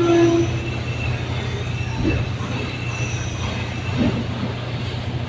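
Boom lift machinery running with a steady low engine hum, a brief squeal at the very start, and faint high whining tones over the hum.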